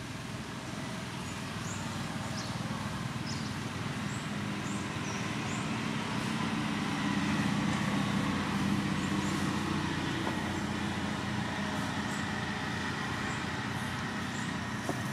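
A motor vehicle's engine running, a steady hum that grows louder toward the middle and then fades again, as if passing by.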